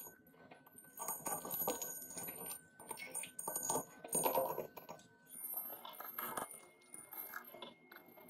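Irregular clattering and crackling noises in uneven bursts, over a thin steady high tone that jumps to a higher pitch about five seconds in.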